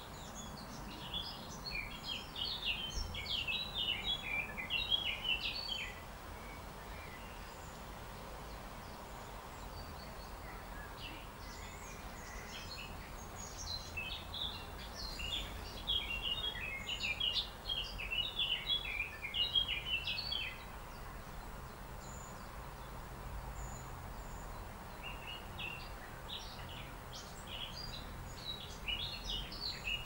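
A small songbird singing in long phrases of quick, varied chirping notes: one from about a second in to about six seconds, another from about twelve to twenty-one seconds, and a third starting about twenty-five seconds in, over a steady low outdoor rumble.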